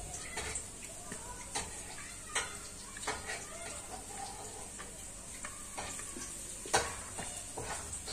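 Sponge cake batter being poured and scraped out of a stainless steel mixing bowl into a cake pan: soft scraping with scattered light knocks of the bowl, one louder knock a little before the end.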